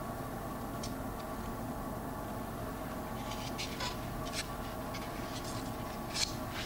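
Faint, scattered scratching and crackling as a section of tomb-wall plaster, faced with fabric and braced with polyurethane foam, is worked loose and lifted off the rock, over a steady low hum.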